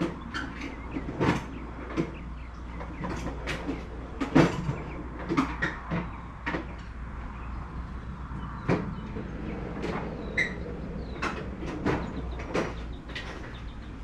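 Fishing gear being handled: irregular clicks, knocks and rustling of a fishing bag and its metal tools.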